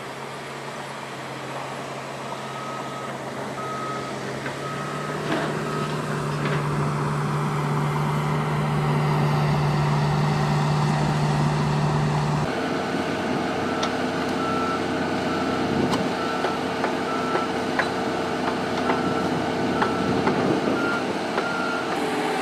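Backup alarm on heavy earthmoving equipment beeping at an even pace over a running engine that grows louder during the first half. The beeping comes in a short run early on, pauses, then starts again about halfway through and keeps going, as the engine note changes abruptly.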